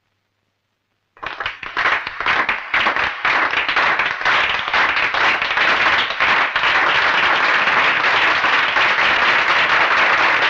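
A crowd breaking into applause. After about a second of silence, scattered claps start and quickly build into dense, steady clapping.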